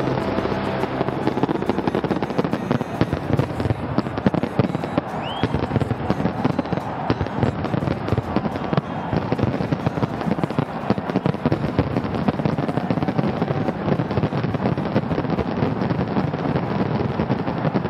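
Fireworks display: a dense, continuous crackle of many overlapping bursts and bangs, with a brief rising whistle about five seconds in.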